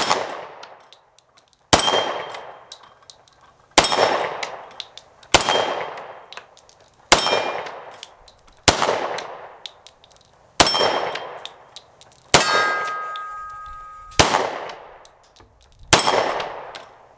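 FK Brno PSD-C compact pistol firing 10mm rounds: ten single shots, about one every two seconds, each with a short metallic ring of steel targets being hit, one ringing longer about twelve seconds in.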